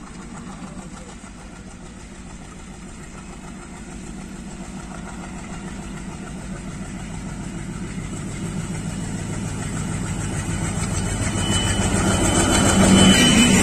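ALCO diesel locomotive approaching under power, its engine growing steadily louder as it nears. In the last couple of seconds, the rumble of wheels on rails joins in as it reaches the crossing.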